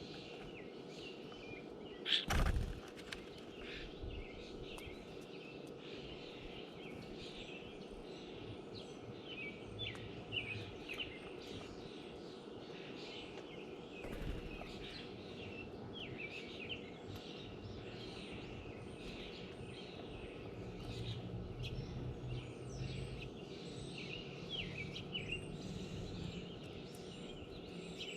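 Songbirds chirping, many short calls overlapping and repeating throughout over steady background noise, with a sharp knock about two seconds in and a softer one midway.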